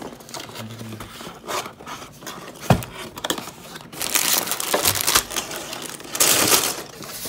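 A cardboard LEGO box being opened and tipped out, sealed plastic parts bags sliding out and crinkling, with a single sharp knock a little under three seconds in. The crinkling grows louder about four seconds in and again near the end as the bags are handled.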